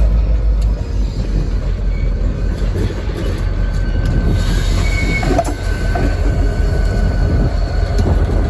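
Diesel locomotives rumbling past slowly with their engines running, wheels rolling on the rails, and faint high wheel squeal coming and going.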